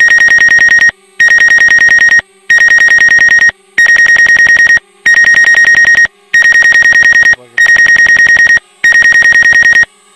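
Low-battery alarm for a DJI Spark drone: a loud, high electronic buzzing beep, each about a second long, repeating with short gaps about eight times. It signals that the drone's battery is running low.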